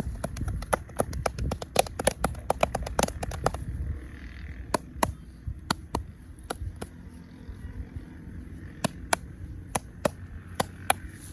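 A massager's hands making sharp slaps and clicks during a head and shoulder massage: a quick, dense run for about the first three and a half seconds, then single clicks spaced out.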